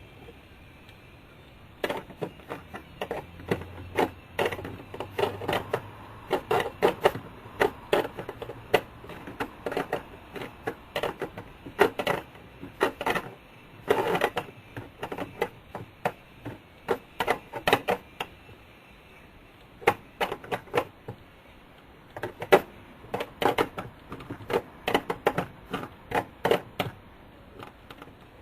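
Runs of rapid sharp clicks from a small ratchet wrench tightening the nuts on an instrument gauge's mounting studs, with short pauses between runs.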